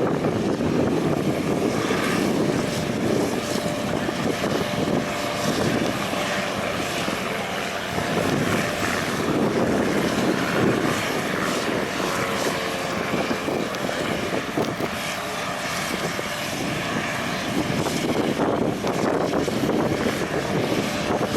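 Steady aircraft engine noise, a continuous rush with faint steady tones coming through in the second half.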